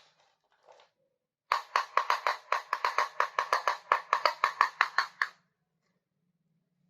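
A rapid, even run of sharp ringing taps, about eight a second, starting about a second and a half in and stopping after about four seconds.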